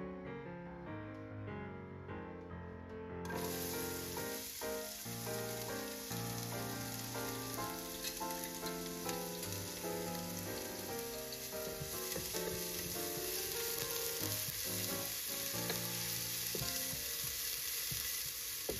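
Chopped red onion dropped into hot vegetable oil in a pot, with the sizzle starting suddenly about three seconds in and frying steadily after that. Near the end the onion is stirred with a wooden spoon. Soft piano music plays underneath.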